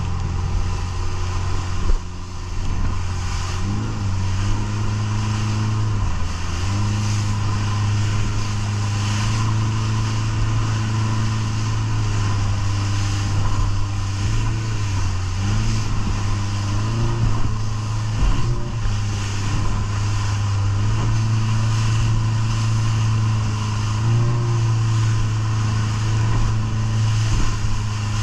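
Fishing boat's engine running under way, its pitch stepping up and down a few times as the throttle changes, over a steady rush of wind and water against the hull.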